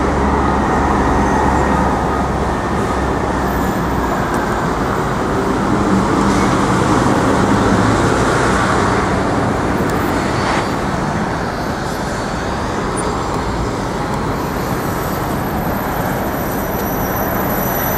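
Busy city road traffic noise: a steady wash of passing cars and heavier vehicles, with a low engine rumble under the first six seconds or so.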